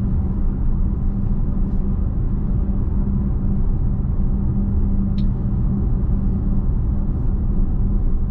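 Road and tyre noise inside the cabin of a Tesla cruising at about 35 mph: a steady low rumble with a steady hum. A single short click sounds about five seconds in.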